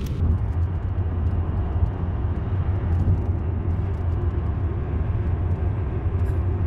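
Road noise inside a moving car: a steady low rumble with an even hiss above it.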